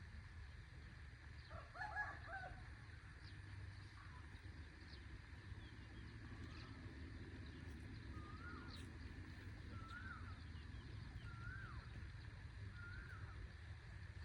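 Farmyard bird calls: a chicken calls once about two seconds in, the loudest sound, and a bird repeats a short rising-and-falling note about every second and a half in the second half, over a steady low rumble.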